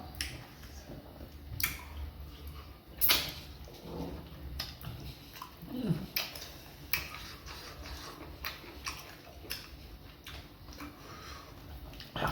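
Close-up eating sounds: repeated mouth smacks and clicks while chewing soft fufu and soup, with one short falling pitched sound about six seconds in.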